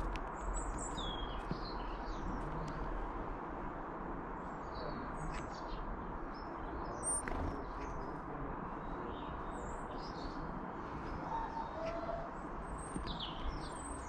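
Small garden birds chirping and calling at intervals, short high notes and trills scattered through, over a steady outdoor background hiss with a few light clicks.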